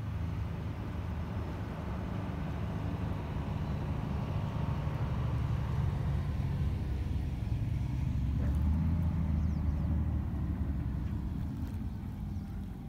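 A car engine passing, a low rumble that slowly grows louder, peaks about nine seconds in, then fades.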